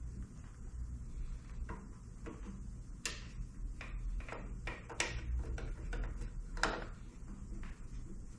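Scattered light clicks and knocks of small plastic and metal parts being handled while a motorcycle turn-signal lens and bulb are worked on, the sharpest about three, five and near seven seconds in, over a low steady hum.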